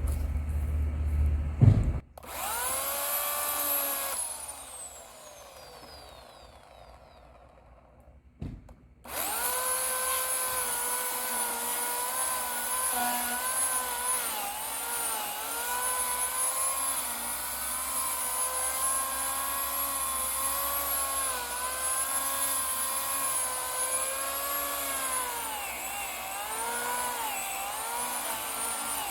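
Oregon CS1500 15-amp corded electric chainsaw motor whining. It stops about two seconds in, briefly spins up and then winds down with a falling pitch, starts again about nine seconds in, and runs steadily with its pitch dipping now and then as the chain works through the wood.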